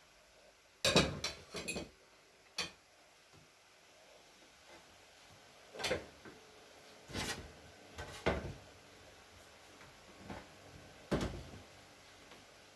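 Dishes and cutlery clinking and knocking: a quick cluster of sharp knocks about a second in, then single knocks every second or two.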